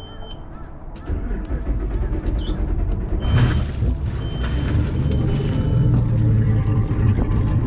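MerCruiser 8.1 V8 marine engine running, a steady low rumble that comes in about a second in and holds.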